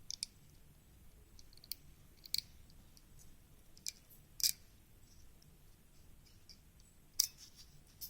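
Irregular sharp clicks and light scrapes of a thin aluminium strip cut from a drink can being worked onto the joint of a two-section bamboo flute, with the strongest clicks about four and a half and seven seconds in.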